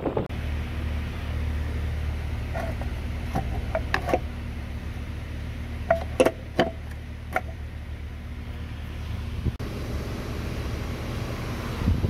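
A steady low mechanical hum, with a few sharp clicks and taps partway through. The hum stops about three-quarters of the way in, and a louder knock follows near the end.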